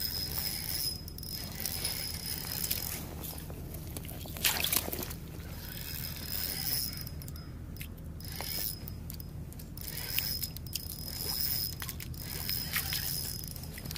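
Small spinning reel on an ice-fishing rod being cranked to wind in line: a mechanical whir with scattered clicks.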